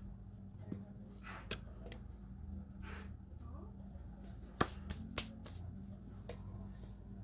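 A few sharp clicks and taps, the loudest about four and a half seconds in, with light rustling as hands with long artificial nail tips are shifted on a plastic nail lamp. A low steady hum runs underneath.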